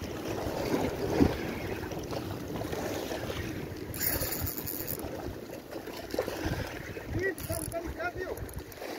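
Wind buffeting the microphone over sea water surging and splashing against shoreline rocks, with a brief hiss about four seconds in.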